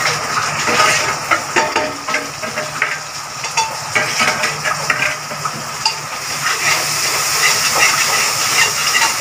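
Onions frying in oil in a pressure cooker as powdered spices are scraped in from a steel plate with a metal ladle and stirred, with frequent small metal clinks. The sizzle grows stronger about six seconds in as the spices hit the hot oil.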